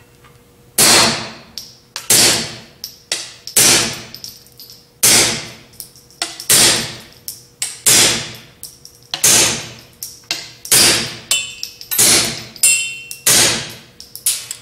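Suppressed .22 LR pistol shots: a Walther P22 semi-automatic fitted with a stainless steel SilencerCo 22Sparrow suppressor, fired dry with standard velocity ammunition. About ten evenly paced shots, roughly one every second and a half, each a sharp crack that dies away quickly, with lighter clinks between shots.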